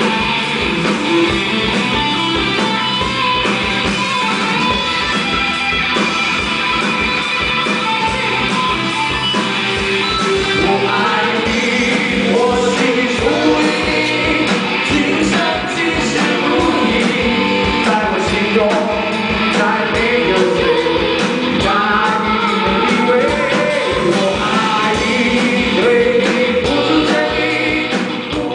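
Live band playing a rock song with a singer, over a steady beat.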